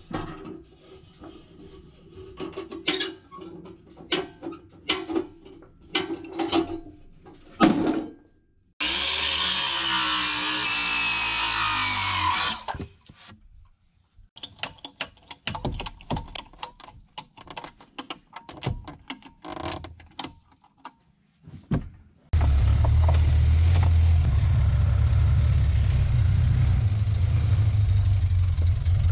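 A run of sharp knocks and taps, a few seconds of a loud power tool with a shifting whine, more knocks, then a large engine running steadily from about 22 seconds in.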